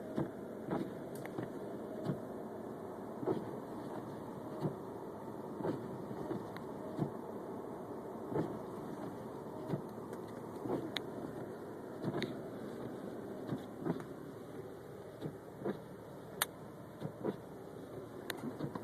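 Steady car running noise heard from inside the cabin, with light irregular taps and clicks about once a second.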